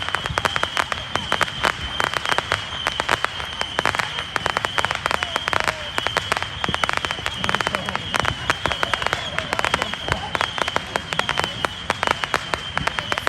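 Fireworks crackling: a dense, unbroken stream of rapid pops and crackles, with a steady high-pitched tone running underneath.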